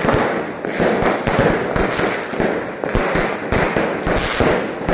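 Aerial fireworks going off in quick succession: dense, irregular bangs and crackling overlapping one another with no let-up, loud throughout.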